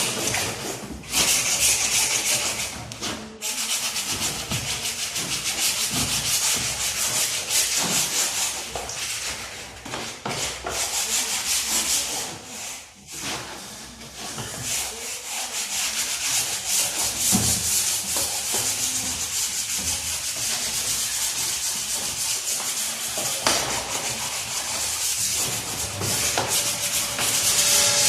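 Hand scrubbing, a continuous abrasive rubbing and scraping, with brief pauses about a second in, around three seconds in and around thirteen seconds in.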